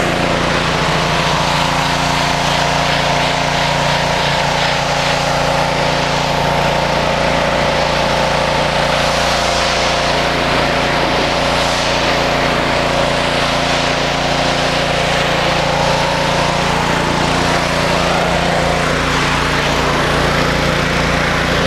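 Gas-engine 3000 psi pressure washer running steadily, with the hiss of its high-pressure water spray striking concrete.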